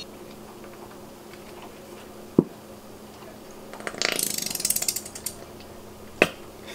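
Handheld spice grinder being twisted over a bowl, giving a fast run of ratcheting clicks for about a second and a half. One sharp knock comes before the grinding and another after it.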